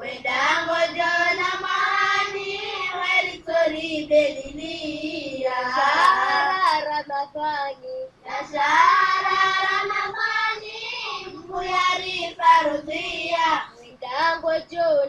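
A child's solo voice singing a slow, ornamented religious melody in long held phrases, pausing for breath about eight seconds in and again near the end.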